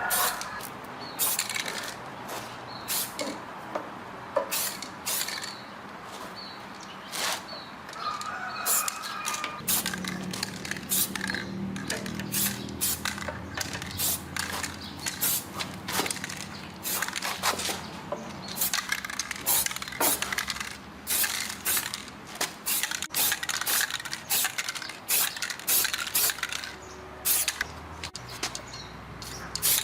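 Workshop work noises: many sharp clicks and knocks, like tools on metal parts. A low steady machine hum joins about ten seconds in and stops near the end.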